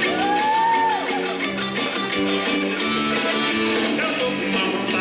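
Recorded song with strummed guitar playing a steady repeating chord pattern, with a short sliding note that rises and then falls in the first second.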